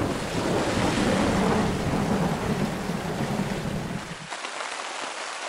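Storm wind buffeting the tent and the microphone with a low rumble over rain, until about four seconds in, when it gives way abruptly to the steady hiss of rain on the tent.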